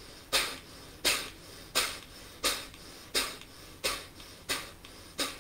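Kapalbhati breathing: a man forcing the air out through his nostrils in a steady series of sharp, short exhalations, eight of them at an even pace a little faster than one a second.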